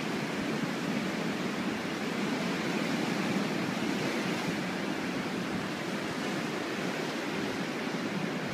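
Ocean surf breaking and washing over a rocky shoreline: a steady rush of waves.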